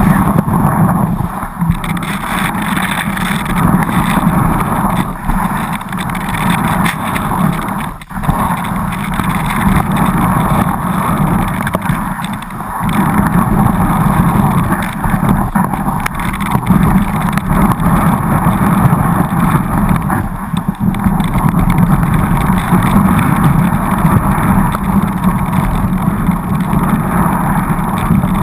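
Steady rush of wind buffeting a GoPro Hero2 in its waterproof housing during a downhill ski run, mixed with the skis running over snow; it dips briefly about eight seconds in.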